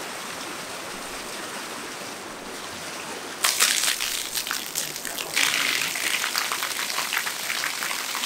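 Water running with a steady hiss, then about three and a half seconds in a louder gush of water starts, splashing with irregular crackling spatters.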